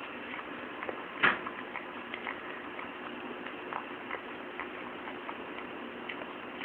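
Dog eating from a stainless steel bowl: small irregular clicks of its tongue and teeth against the metal, with one louder knock about a second in.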